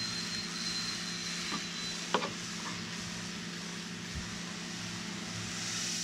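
Steady outdoor background noise: a constant low hum under an even hiss, with a faint thin high whistle for the first two seconds and a few soft clicks around two seconds in.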